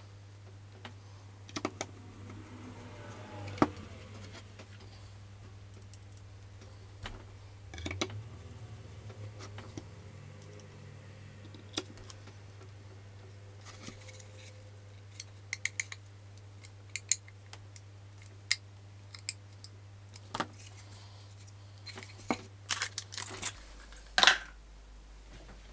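Scattered clicks and taps of small tools and loudspeaker tweeter parts being handled on a workbench, with a busier run of clicks near the end. A steady low hum sits underneath and drops lower near the end.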